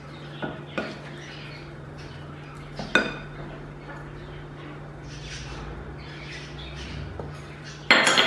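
Wooden spatula knocking against a glass mixing bowl as raw chicken wings are tossed in flour and spices. A few light clinks, a soft rustle of flour being poured in, and a louder clatter near the end.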